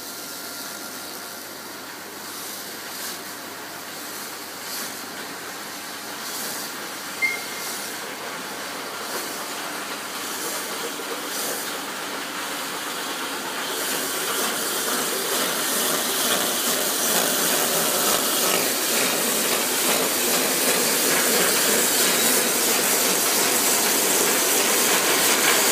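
Hose-making lathe running as it turns a corrugated hose and spirals a tape strip onto it. It makes a steady hissing machine noise that grows louder from about halfway, with a brief high squeak about seven seconds in.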